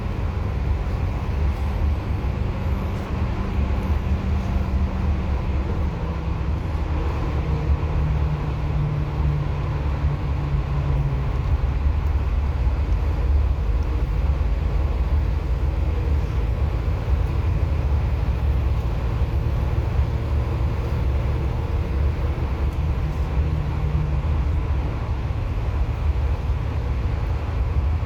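Bus engine and road rumble at cruising speed, a steady low drone whose engine note steps down about six seconds in.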